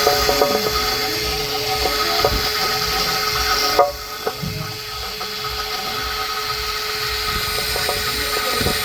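Power tool running steadily, then cutting off suddenly about four seconds in, followed by light clicks and knocks of hand tools on metal.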